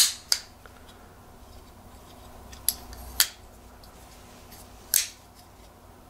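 Folding knife with a front flipper and titanium liner lock being worked by hand: four short, sharp metallic clicks of the blade snapping open and shut, the two near the middle and the one near the end loudest.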